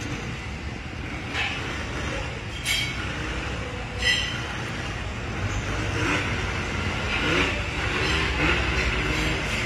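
Steady low rumble of street traffic, with a few sharp clicks about one and a half, three and four seconds in.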